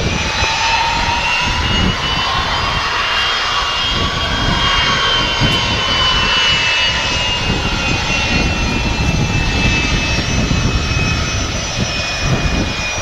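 Twin Rolls-Royce Tay 611-8C turbofans of a Gulfstream G450 (GIV-X) running as the jet taxis: a steady jet whine with high tones that drift slightly lower, over a low rumble.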